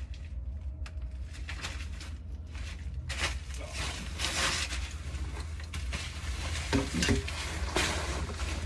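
Rustling and scraping sounds, denser from about three seconds in, over a steady low rumble.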